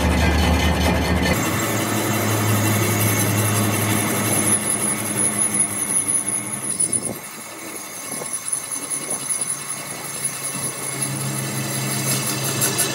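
A machine running with a steady low hum and a high whine, which changes abruptly about seven seconds in; a few knocks follow.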